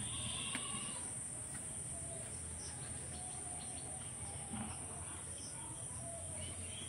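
Steady high-pitched insect chorus, with a few faint bird chirps about a second in and a low hum underneath.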